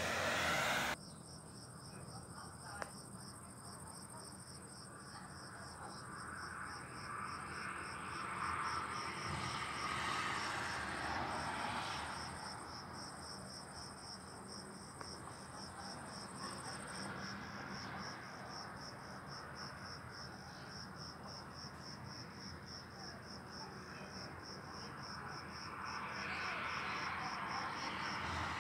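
Crickets chirping steadily in a fast, even pulse, under a rushing noise that swells and fades a few times. A loud rush in the first second cuts off suddenly.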